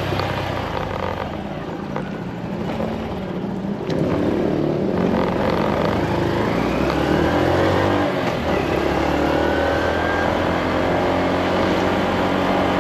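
Small motorcycle engine running under the rider. About four seconds in it gets louder as the bike pulls away onto the road, then its note rises as it accelerates.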